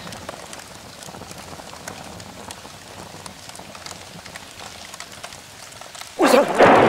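Rain sound effect: an even patter of rain with small drop ticks. Near the end a woman's voice cries out loudly over it.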